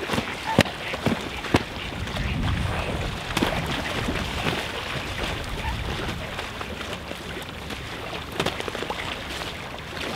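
Mute swans fighting in the water: splashing and wing flapping, with scattered sharp slaps, several in the first two seconds and again near the end.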